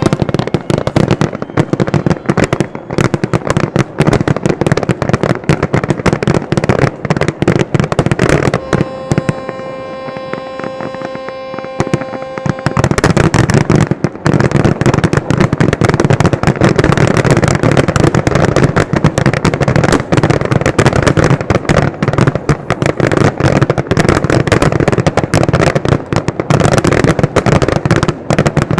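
Fireworks display: rapid bangs and crackling throughout, thickening about halfway through into a continuous, louder barrage of overlapping bursts. A steady high tone sounds for a few seconds just before the barrage builds.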